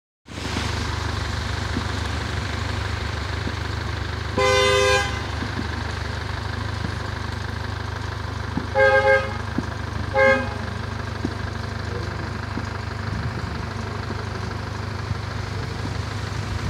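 Car horn honking over a steady low rumble: one longer honk about four seconds in, then a quick double honk and, a second later, one more short honk.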